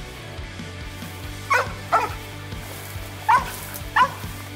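Mountain cur barking treed at some distance, four barks in two pairs. The steady tree bark is the sign that the dog has a raccoon up the tree, which the hunter takes as likely.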